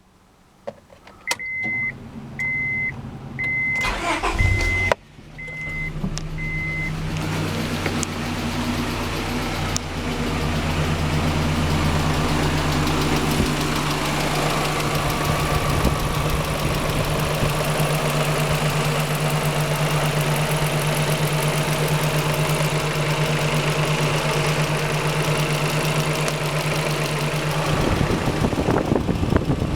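A car's warning chime beeps evenly at one pitch, then a fifth-generation Honda Prelude's four-cylinder engine is cranked and catches about five seconds in. It then runs with a steady drone and a rapid knocking, which the owner takes for bent valves; near the end the steady drone drops away and the sound turns rougher.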